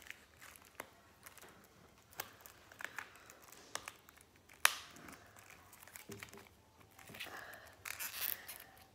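Clear cellophane shrink-wrap on a deck of playing cards being picked at and peeled by fingers: faint scattered crinkles and small clicks, one sharper click about halfway through, and denser crinkling near the end as a strip of the wrap comes away.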